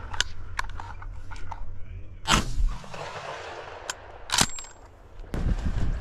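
Two shotgun shots about two seconds apart, the second louder, each a sharp crack with a short echo trailing off.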